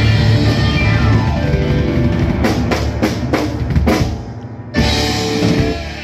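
Live rock and roll band (electric guitar, electric bass and drum kit) playing the end of a song: full band for the first couple of seconds, then a string of sharp drum and cymbal hits, and a final chord held out to close.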